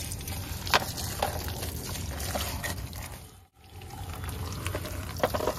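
A thin stream of tap water splashing onto plastic toy cars on wet concrete, with a few sharp knocks of the plastic toys being handled. The water sound drops out briefly about halfway through.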